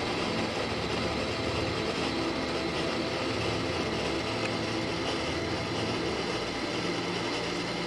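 Steady machine-like hum and hiss that holds at one level without a break.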